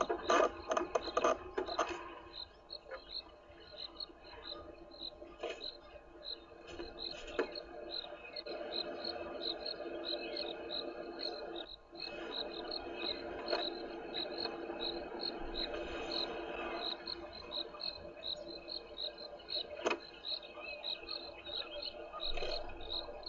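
An African bull elephant feeding at very close range, with crunching and tearing of grass loudest in the first two seconds, then softer rustling and chewing. Over this an insect chirps steadily, about three short high chirps a second.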